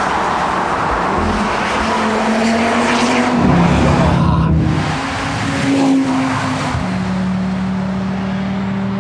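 Audi RS Q3 Sportback's turbocharged five-cylinder engine pulling under acceleration, its note climbing, dropping at a gearshift about three seconds in, climbing again, then holding a steady note from about seven seconds in.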